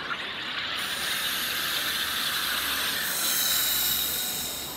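SodaStream soda maker carbonating a bottle of water: a long hiss of carbon dioxide gas being forced into the water, growing louder and then easing off near the end.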